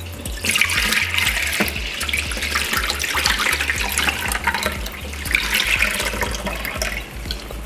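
Water sloshing and splashing as hands swish shredded radish and carrot in a stainless steel bowl, then water pouring out as the bowl is tipped to drain it, rinsing off the salt. The splashing is loudest from about half a second to three seconds in, and again around five to six seconds in.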